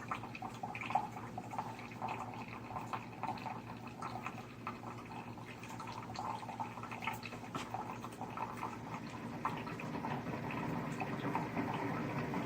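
Keurig K-Café single-serve coffee maker brewing: a low pump hum under coffee streaming and dripping into a cup, getting gradually louder.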